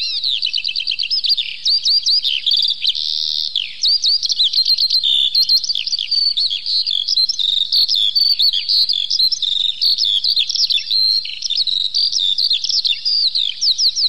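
Eurasian skylark singing: a long, unbroken stream of rapid high chirps, trills and whistles.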